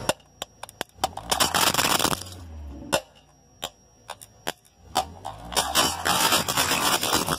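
Plastic containers cracking and crunching under a slowly rolling car tyre: a string of sharp cracks, then a stretch of dense crackling about a second in, a few more single cracks, and a second longer burst of crunching from about five seconds in.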